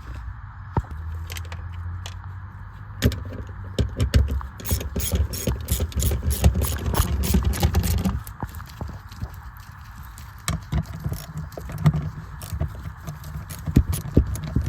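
Metal hand tools clicking and clattering, most densely a few seconds in, with scattered clicks later over a steady low hum.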